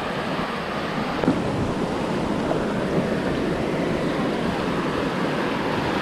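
Sea surf washing onto the shore in a steady rush, with wind, and a brief knock about a second in.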